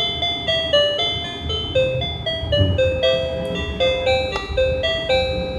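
Electronic tune from a Maruka toy bus's sound chip, set off by a roof button: a simple beeping melody of short, evenly stepped notes.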